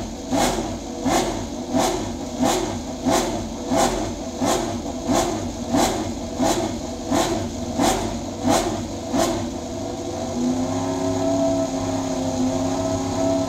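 Suzuki MotoGP racing motorcycle's inline-four engine on a paddock stand, its throttle blipped in a steady rhythm about every two-thirds of a second, then settling to a steady idle about ten seconds in.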